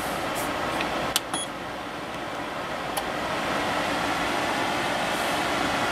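Waykar PD160B dehumidifier running, its fan blowing and reciprocating compressor humming steadily. A short beep and clicks about a second in, then the airflow grows louder as the fan is set to high.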